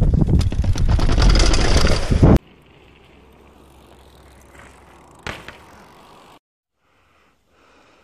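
Downhill mountain bike rattling and clattering down concrete steps, heard from a camera mounted on the bike, with heavy wind rumble on the microphone; it cuts off suddenly about two and a half seconds in. After that only a faint hum, with a single sharp knock about five seconds in.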